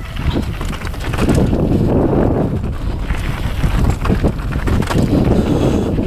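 Mountain bike rattling down a rocky dirt trail, with tyres crunching over stones and frequent knocks and clatter from the bike, under steady wind noise on the microphone.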